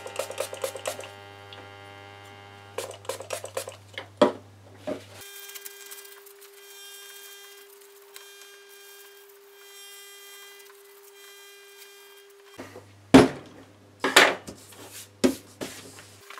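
A small copper-clad board being wiped with an alcohol-dampened tissue and handled on a wooden desk: light scrapes, rubbing and clicks over a faint steady electrical hum, with a few sharper knocks near the end.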